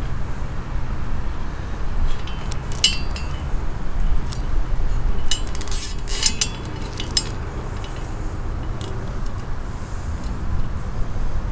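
Galvanized anchor chain clinking and rattling against the steel shank of a Delta plow anchor as hands thread a zip tie through a link: scattered short clicks, most of them bunched about five to six seconds in, over a steady low rumble.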